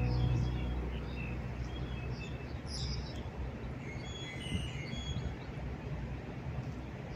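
Guitar background music fades out at the very start, leaving a steady low rumble of city and harbour noise with small birds chirping now and then.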